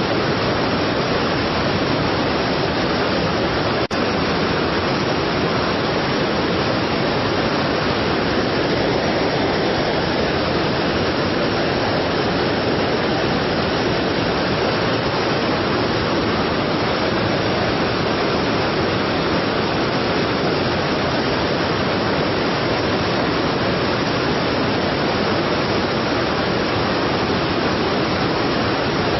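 Strong waterfall, a steady, loud rush of falling water, with a brief tick about four seconds in.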